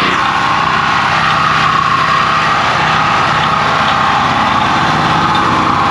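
Portable gas generator running steadily under the load of a welder, with the steady hiss and crackle of a wire-feed welding arc over it.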